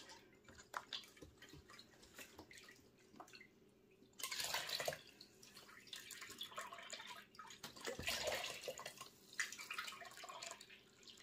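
Stock pouring from a carton into a silicone measuring cup held over a metal pot, a faint splashing trickle of liquid that starts about four seconds in after a few light ticks.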